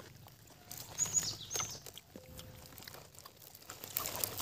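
A wild bird giving three short, high chirps that fall in pitch about a second in, over faint chewing and small clicks from eating.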